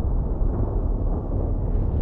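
Thunder rumbling low and deep, a long rolling peal without a sharp crack.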